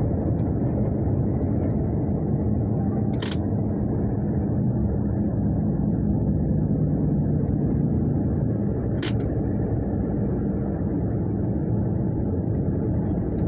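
Road vehicle driving at a steady speed, heard from inside the cabin: a continuous low rumble of engine and tyres. Two short sharp clicks come about three and nine seconds in.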